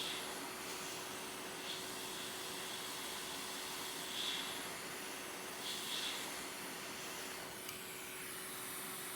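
Hot air rework station blowing steadily, a continuous airy hiss with a steady hum under it, heating a phone logic board to lift off its metal shield.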